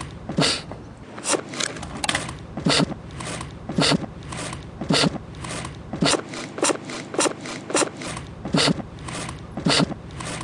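A steady drum beat: a heavy kick drum about once a second with lighter hits between, about two a second in all.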